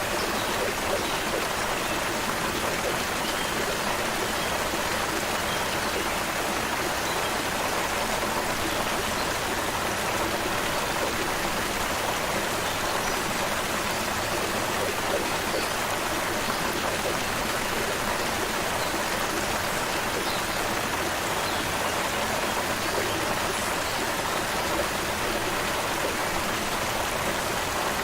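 Shallow creek water flowing and splashing over stones in a steady, even rush.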